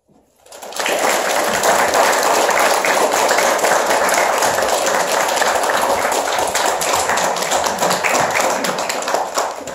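An audience applauding after a piano piece: dense, steady clapping from many hands that starts about a second in and stops near the end.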